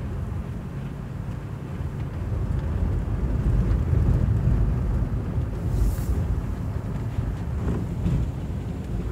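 Low, steady rumble of a car driving slowly on a dirt road, its tyres and engine heard from the cabin, with some wind on the microphone.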